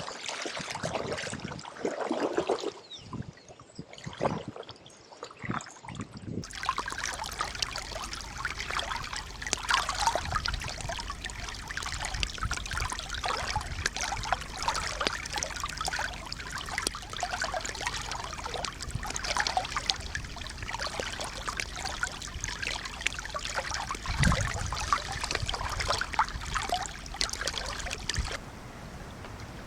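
River floodwater gurgling and splashing in separate bursts. About six seconds in it changes to a steady rush of fast-flowing water full of small splashes, then drops to a quieter flow near the end.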